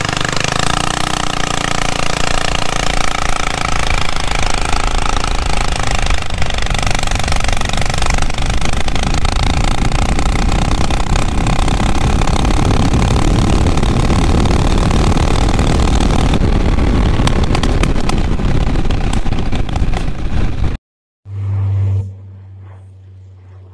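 Minibike engine at full throttle, climbing in pitch as the bike accelerates from a standstill, then running flat out at top speed under heavy wind rush. About 21 seconds in it cuts off abruptly, followed by a short loud burst and a quieter low hum.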